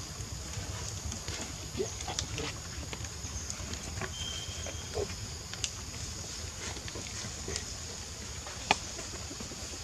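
Outdoor forest ambience with a steady high insect hum. A few soft, short grunts from the monkeys are scattered through it, and there is a single sharp click near the end.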